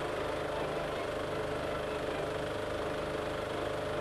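A steady mechanical hum with a fast, even rattle low down, unchanging throughout.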